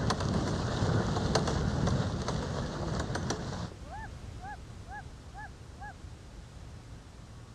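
Heavy wind buffeting and rough road noise with scattered sharp clicks, cut off suddenly about a third of the way in. Then an open-air hush, in which a bird gives five short rising-and-falling calls about half a second apart.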